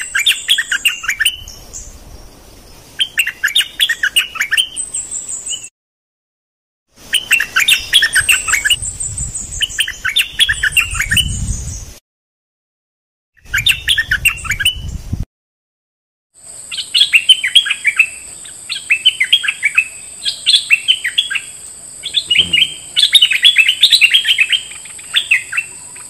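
Caged bulbuls singing: short, bubbly phrases of quick notes, repeated every second or two. The song comes in several separate recordings joined with brief dead-silent gaps. A steady high-pitched tone runs under the last stretch.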